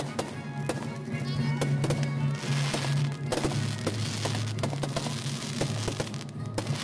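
Fireworks going off in quick succession, sharp bangs with stretches of crackling, over music with a steady low sustained bass.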